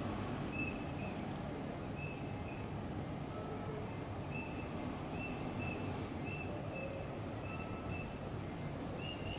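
Diesel route buses running and manoeuvring: a steady low engine rumble, with short high double beeps repeating every second or so.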